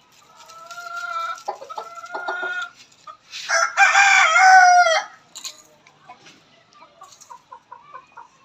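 Chickens clucking, then a rooster crows once, loud and about a second and a half long, a little over three seconds in, followed by faint clucks.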